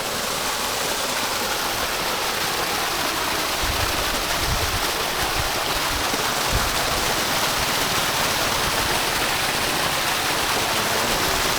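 Irrigation water rushing and splashing steadily, with a few low bumps near the middle.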